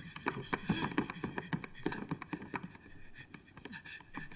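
Quick footsteps on a wooden staircase and floor: a rapid, irregular run of taps and knocks.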